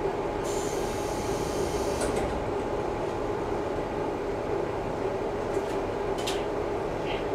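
Interior of a KiHa 11-100 diesel railcar: steady engine and running noise with a low hum. A brief hiss comes about half a second in, and a few light clicks follow.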